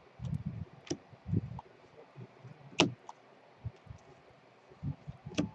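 Trading cards being handled and sorted: a few soft low thuds and scattered short clicks, the sharpest click about three seconds in.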